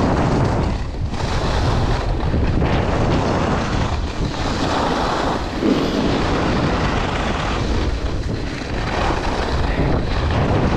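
Wind buffeting the microphone of a downhill skier, over the hiss and scrape of skis on packed snow that swells and fades with the turns.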